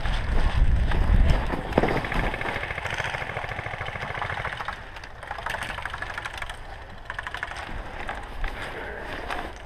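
Airsoft guns firing in rapid clattering strings. A low rumble of wind or handling on the body-worn microphone fills the first two seconds.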